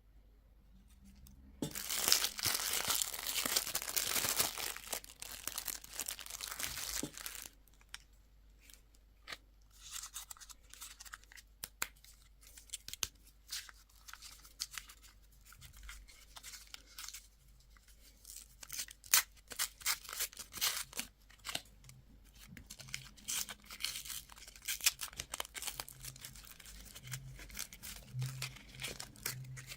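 Candy and toy packaging being torn open and crinkled by hand: a long ripping stretch starting about two seconds in and lasting some five seconds, then scattered crackles and crinkles of wrapper.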